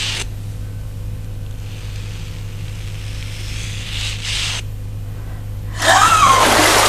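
A steady low hum with soft rustles. About six seconds in, loud splashing of water in a bathtub starts suddenly, with a wavering voice-like sound over it.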